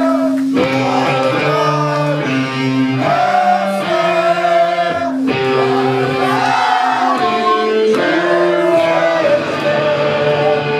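Live rock band playing loud: electric guitar and bass guitar with singing, long held notes changing every second or two.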